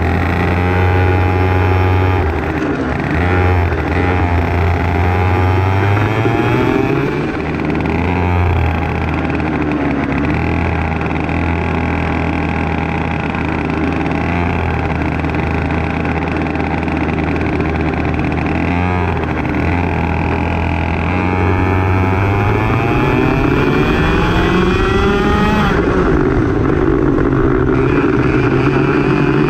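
Racing kart engine running at low, fairly steady revs with small rises and dips, then revving up steadily about three quarters through and holding at higher revs.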